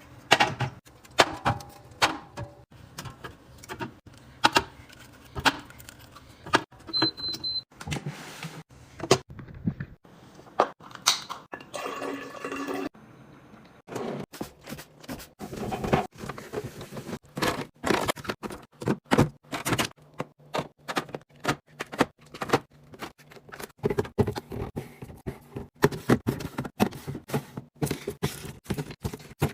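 Items being set down and stacked in a refrigerator: a long run of irregular clicks, taps and knocks of packages and containers, some ringing briefly.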